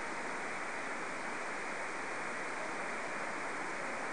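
Steady shortwave static hiss from a Perseus SDR receiver in synchronous AM mode, tuned to a weak pirate station on 3275.9 kHz. The noise is cut off sharply above about 2.5 kHz by the receiver's filter, and no programme audio can be made out through it.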